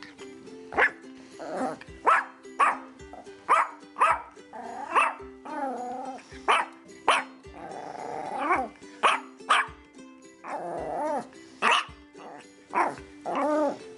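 A dog barking loudly and repeatedly, roughly one sharp bark a second, with a few longer barks that waver in pitch. Background music with steady held notes plays underneath.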